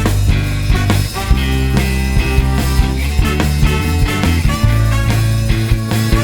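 Loud rock-style music with a heavy, sustained bass line and a steady beat.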